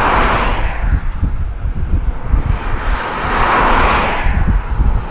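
Strong wind buffeting the microphone: a heavy, uneven low rumble under a rushing gust noise that swells at the start and again about three and a half seconds in.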